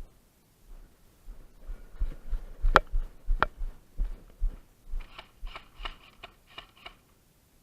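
Close handling noise: rustling and soft thumps, with two sharp clicks a little under three seconds in and a quick run of crackly rustles near the end.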